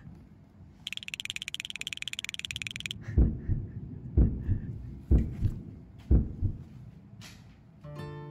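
Heartbeat sound effect: four loud double thumps, lub-dub, about a second apart, after about two seconds of a rapid buzzing trill. Acoustic guitar music starts just before the end.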